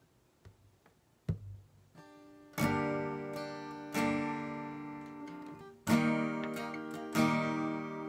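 Acoustic guitar with a capo, strummed chords left to ring: four strokes about a second and a half apart, starting about two and a half seconds in. Before them come a couple of soft knocks.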